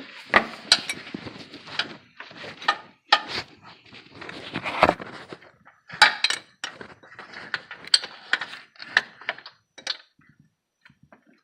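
Metal hand tools clicking and clinking against the engine as a belt pulley's bolt is undone, in quick irregular clicks with stretches of scraping.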